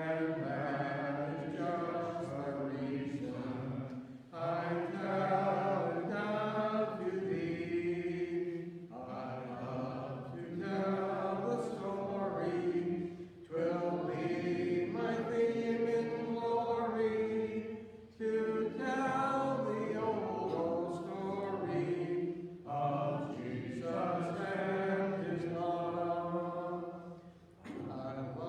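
Voices singing a slow hymn together in sustained phrases of about four to five seconds, with short breaks between lines.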